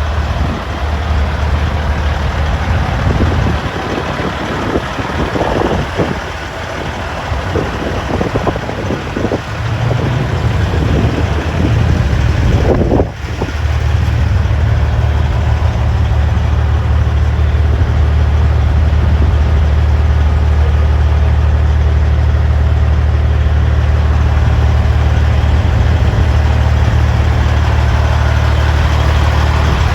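Big truck engine idling with a steady low rumble. It grows louder and steadier after a brief dip a little under halfway in.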